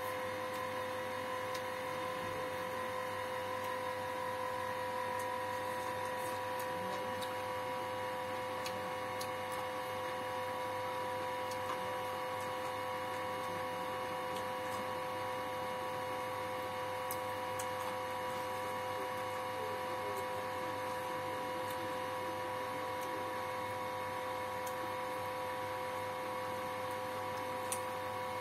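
A steady electrical hum with a couple of high, unchanging whining tones, and faint scattered clicks of someone eating with his fingers.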